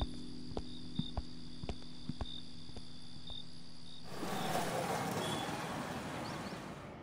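Crickets chirping, a steady high trill with regular pulses over a low steady hum, with a few faint clicks. About four seconds in it cuts abruptly to a broad, even wash of city ambience.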